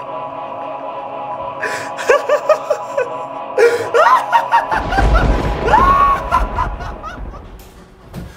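Dramatic music with a long held chord, over which a man laughs like a gloating villain in short repeated bursts. The laugh and music swell about four seconds in, with a heavy low rumble, then fade near the end.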